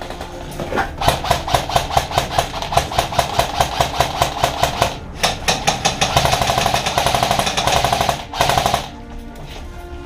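Airsoft gun firing on full auto: a long rapid string of shots, then a continuous burst, and a short burst just after 8 seconds in.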